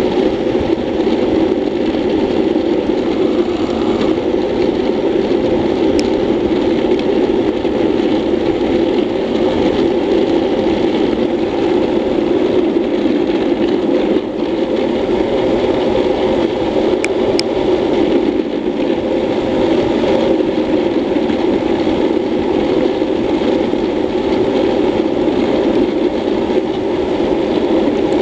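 Classic luge board's urethane wheels rolling fast on asphalt, a steady roar mixed with wind rushing past the helmet camera, with a few sharp ticks.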